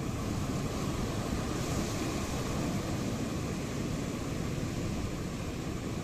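Sea waves breaking on the shore: a steady wash of surf, swelling slightly about two seconds in, with no single crash standing out.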